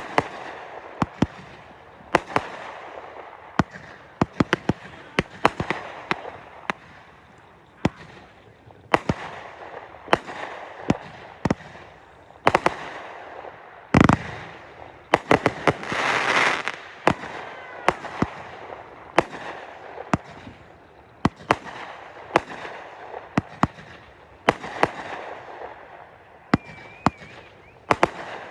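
Consumer fireworks going off in a rapid, irregular series of sharp bangs over steady crackling. The loudest blast comes about halfway through and is followed by a few seconds of dense crackle, and a faint whistle rises near the end.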